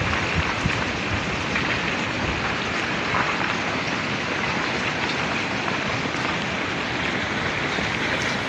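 Ongoing landslide: a steady rushing hiss of rock and gravel pouring down a mountainside, with a few faint sharp clicks of stones.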